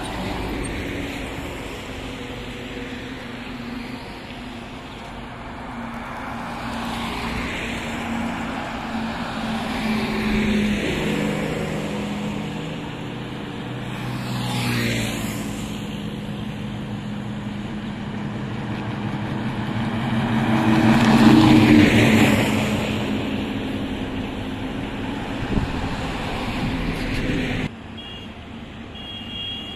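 Highway traffic: heavy diesel trucks running and passing in turn, each swelling and fading. About halfway through, a motorcycle passes close with a falling pitch. The loudest pass comes about two-thirds in, and the sound drops off abruptly near the end.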